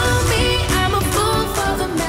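Background pop music with a sung vocal line over a steady bass.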